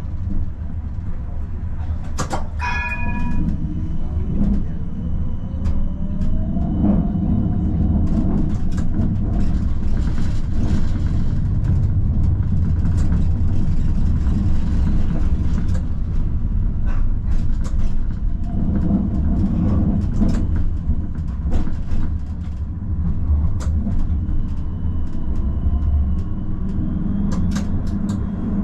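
Amsterdam tram running on its rails: a steady low rumble with scattered clicks of the wheels on the track, and an electric motor whine that rises in pitch a few seconds in. A short ringing tone sounds about two seconds in.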